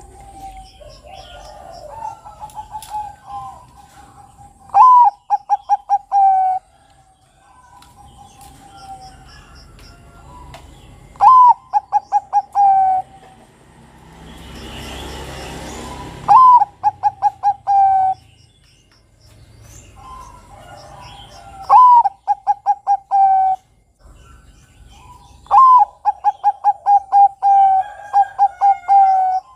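Bangkok-type zebra dove (perkutut) singing its cooing song five times, each phrase a loud opening note followed by a quick run of short repeated notes, about every five seconds. Faint chirps of other birds sit between the phrases, with a brief rushing noise in the middle.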